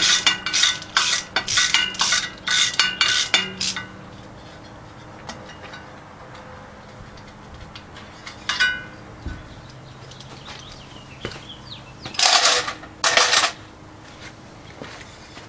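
Ratchet wrench clicking in quick strokes, about three a second, turning out the water pump bolts; it stops about four seconds in. A single metal clink comes midway, then two loud metallic clatters about twelve and thirteen seconds in.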